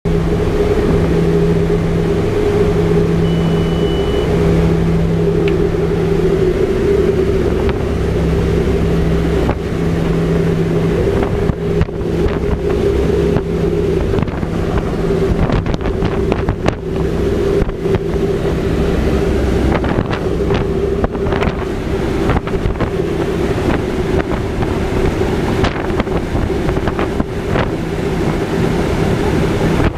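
Steady drone of a Short Skyvan's twin turboprop engines mixed with wind rushing past the open rear ramp door. From about twelve seconds in, rough gusts of wind buffet the microphone.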